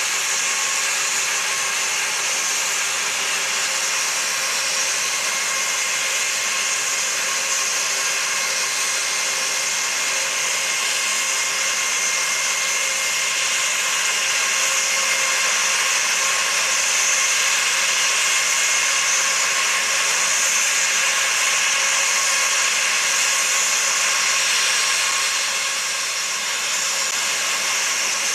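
Jet engines of an Airbus A320-family airliner running at idle: a steady whine and hiss with several high held tones, swelling slightly in the middle and easing a little near the end.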